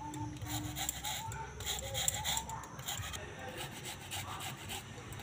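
Whole rose apples (jamrul) grated on a stainless-steel box grater into a steel bowl, in repeated short strokes of fruit scraping over the metal teeth.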